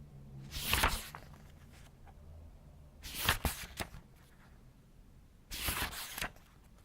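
Paper pages of a book being turned slowly by hand, three separate page turns, each a short rustling swish with a crisp crackle of the sheet, a couple of seconds apart.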